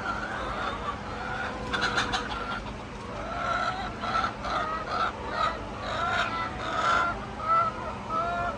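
Hens clucking and calling, a string of short calls one after another from about two seconds in, over a faint steady hum.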